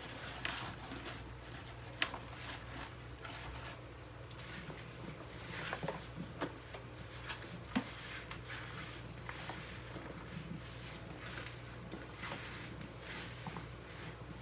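Hands moving oiled chunks of butternut squash, carrot and onion around on metal sheet pans: soft squishing with scattered light clicks of pieces knocking on the pan, and two sharper knocks, about two seconds and nearly eight seconds in. A steady low hum runs underneath.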